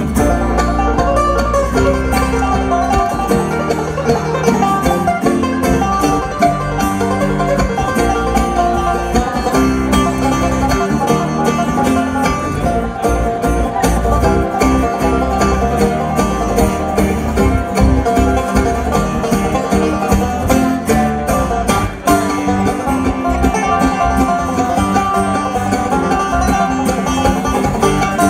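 Live bluegrass band playing an instrumental passage, with banjo, mandolin, acoustic guitar and electric bass picking together.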